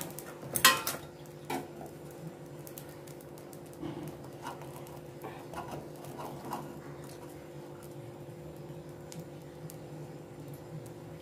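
A metal knife scraping and clicking against a clay steaming mould as steamed rice cakes are loosened around their edges and lifted out, with a few sharper clicks in the first couple of seconds and lighter scrapes after. A steady low hum runs underneath.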